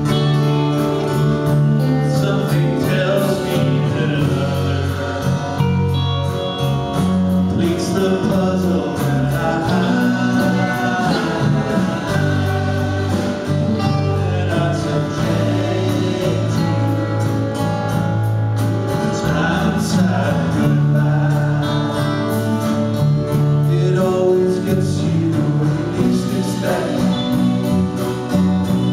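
Live band playing a song: electric and acoustic guitars, keyboard and drums, with singing.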